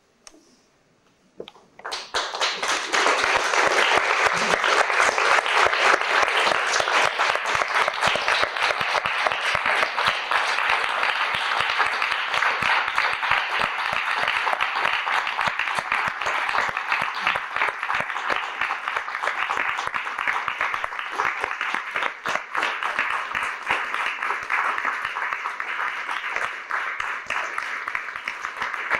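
Theatre audience applauding at the close of a live stage performance: after near silence the clapping starts suddenly about two seconds in and carries on as a steady, dense ovation.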